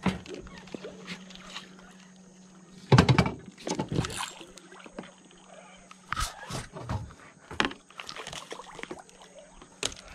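A small snook being fought on a spinning rod beside a boat: irregular splashes and knocks, the loudest about three seconds in, over a faint steady hum.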